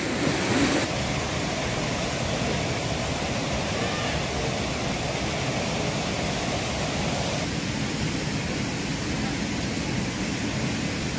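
Steady rush of a waterfall and its cascading stream, an even noise without breaks.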